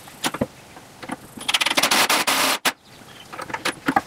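Cordless Milwaukee Fuel impact driver driving a screw into a wooden block: one burst of about a second and a half that stops abruptly as the screw seats. Light clicks and knocks of handling come before and after it.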